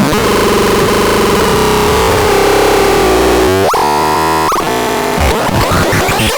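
Harsh, noisy electronic synthesizer sound with a held tone underneath, broken a little past the middle by a few quick rising pitch sweeps.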